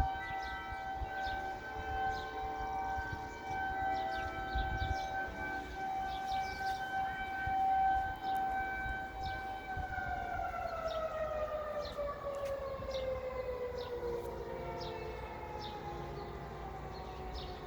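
Outdoor warning sirens sounding a steady tone, with several other sirens' pitches heard together. About ten seconds in, the main siren's pitch falls steadily as it winds down, the sign of it being shut off at the end of the test.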